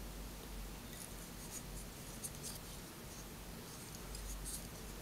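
Faint scratchy rubbing and light ticks of tying thread and elk hair being handled on a fly-tying hook, over a low steady hum.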